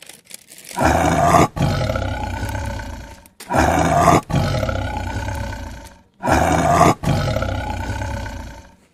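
A big cat roaring three times in a row, each roar starting loud and trailing off over two to three seconds; a recorded roar used as a sound effect for a stuffed toy tiger.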